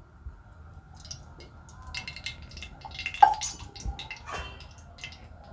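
Mustard oil poured from a steel tumbler into a steel kadai, trickling and dripping in small ticks, with one sharp metallic clink about three seconds in.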